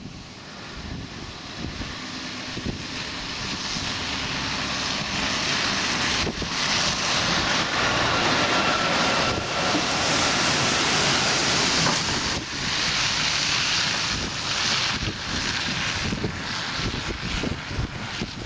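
Scania lorry pulling a heavy low-loader trailer drives past up close on a wet lane: engine and tyre noise build as it nears, loudest about ten seconds in, then ease a little as it pulls away. Wind buffets the microphone.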